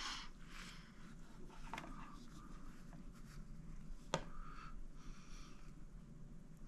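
Faint handling noises, soft rustles and scrapes, with one sharp click about four seconds in.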